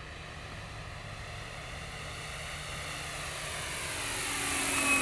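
Brushless outrunner motor and 18-inch three-blade propeller of a 2-metre electric RC P-40E Warhawk running in flight, its hum growing steadily louder as the plane approaches.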